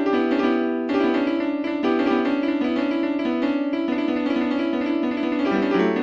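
Piano music: sustained chords and melody notes played continuously.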